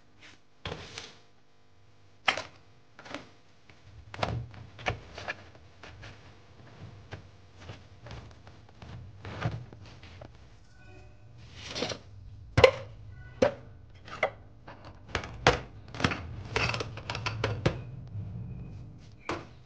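Metal saucepans and frying pans being set down and moved about on a stainless steel sink and drainer: irregular clanks and knocks, with some rustling in between.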